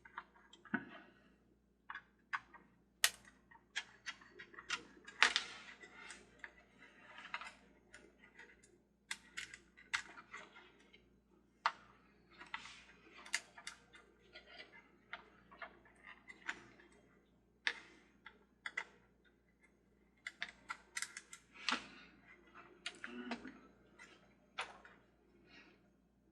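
Irregular clicks and taps of hands and a small tool handling plastic parts while taking apart the base of a toy carousel, unhooking its speaker.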